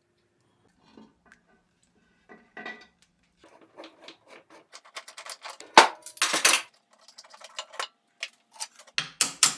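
Steel parts of an old horizontal milling machine clinking and knocking as it is taken apart and its bearings removed. Scattered light clinks build to a few sharp metal knocks about six seconds in.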